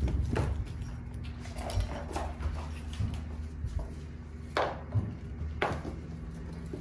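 Kittens playing among plastic and cardboard toys: a scatter of light knocks and clicks, with two sharper ones about four and a half and five and a half seconds in, over a low steady hum.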